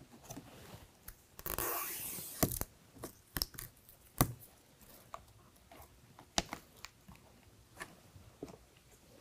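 Red plastic liner being peeled off the 3M adhesive tape of an acrylic in-channel vent visor: a longer peeling stretch about a second and a half in, then scattered small crackles and ticks as the liner is pulled along.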